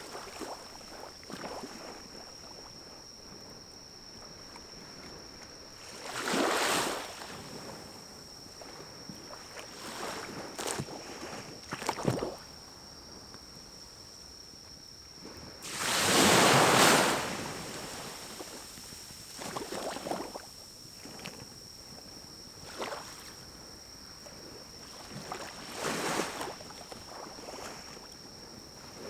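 Pine cones burning in a small wood-burning stove: a quiet fire crackling with scattered pops, and three rushing whooshes of a second or two each, the loudest about halfway through.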